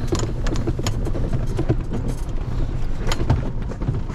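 Golf cart driving across a rough field: a steady low rumble with frequent sharp knocks and rattles.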